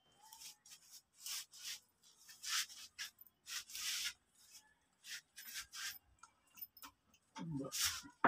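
Short, irregular rubbing strokes against a wooden board: about a dozen dry hisses, each lasting a fraction of a second.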